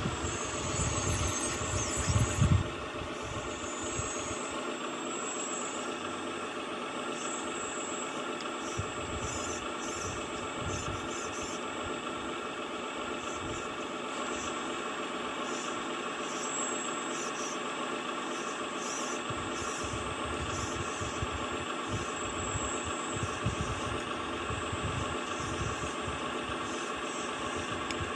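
Heavy diesel engine of earth-moving machinery running steadily, with a few loud low thumps about two seconds in.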